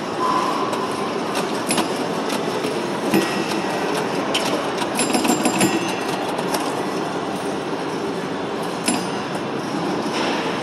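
Antique pinball machine in play: a continuous mechanical rattle with many sharp clicks, and a few brief ringing tones about three and five seconds in.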